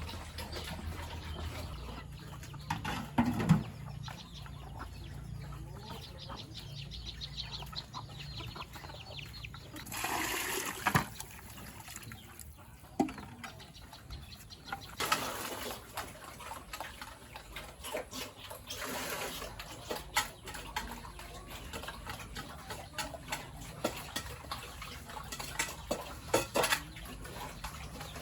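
Farmyard sounds: three short bursts of gushing, splashing water, and a few brief animal calls, with chickens clucking, among scattered knocks and clicks.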